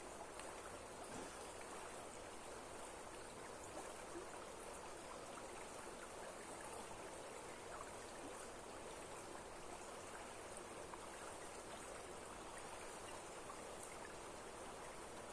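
Steady rush of water from a strongly flowing waterfall.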